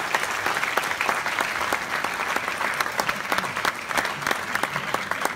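Audience applauding, a dense steady clatter of many hands, with sharper claps from someone close by.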